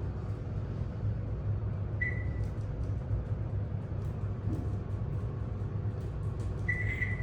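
Elevator car travelling with a steady low rumble, and two short high electronic beeps from the cab, about two seconds in and near the end.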